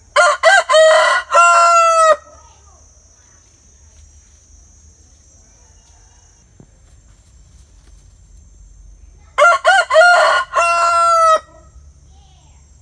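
Rooster crowing twice, about nine seconds apart: each cock-a-doodle-doo is a few short notes leading into a long held final note.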